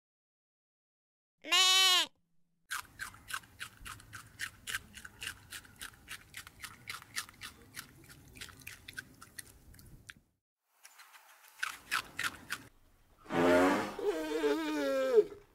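A goat bleats once, then rabbits chew leafy greens with quick crunching bites for about seven seconds. Near the end a loud animal call lasts about two seconds.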